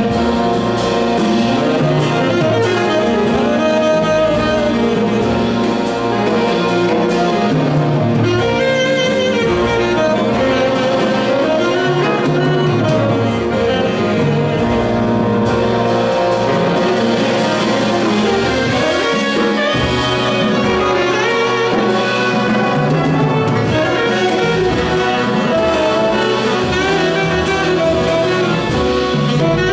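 Tenor saxophone soloing over a jazz big band, with the band's brass and saxophones playing behind it.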